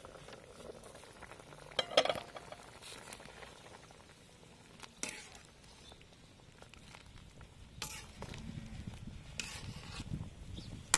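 A metal spatula stirring and scraping braised pork ribs and duck eggs in a steel wok of broth, clinking against the pan, with one sharp metal clank about two seconds in.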